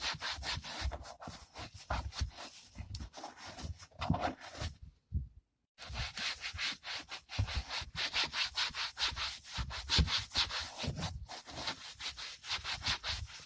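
A cloth rag rubbed hard back and forth over a car door armrest in quick, scratchy strokes, with a pause of about a second near the middle.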